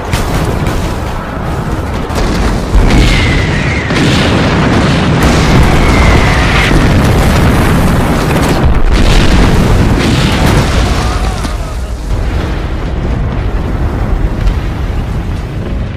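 Battle sound effects: explosions and booms going off one after another without a break, with music underneath.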